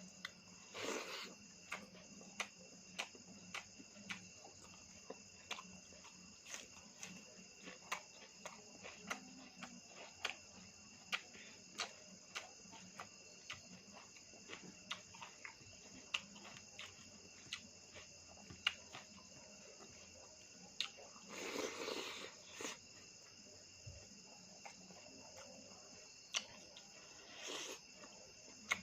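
Close-up eating sounds: chewing and lip-smacking clicks, roughly one or two a second, with three longer noisy bursts, such as slurps or breaths, about a second in, around the middle and near the end.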